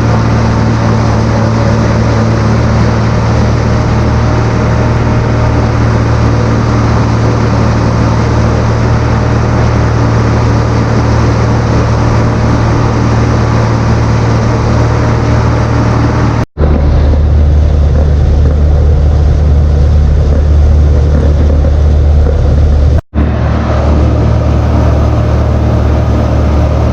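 Tractor engine running steadily at a constant speed. The sound cuts out abruptly twice, about two-thirds of the way in and again near the end, and the low note sits slightly lower after the first cut.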